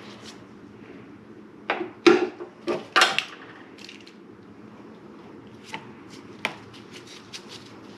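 Hose clamp pliers knocking and clattering against the aluminium intake manifold several times, about two to three seconds in, as they are picked up. Then a run of lighter clicks as the pliers work a hose clamp.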